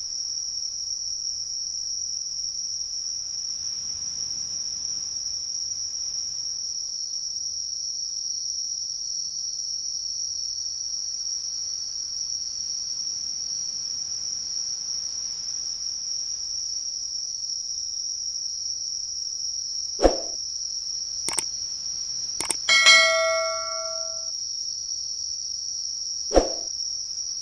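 Insects drone steadily at a high pitch throughout. About twenty seconds in, a few sharp mouse-click sound effects are followed by a notification bell ding that rings for about a second and a half, with one more click near the end: the sound effects of an on-screen YouTube subscribe-button animation.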